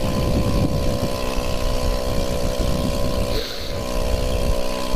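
Small scooter engine running at a steady pitch while riding a rough dirt trail, over an irregular low rumble.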